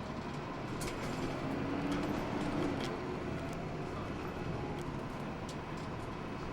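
Hino Blue Ribbon II city bus heard from inside the cabin: a steady engine and road noise that swells a little a couple of seconds in, with small rattling clicks from the interior.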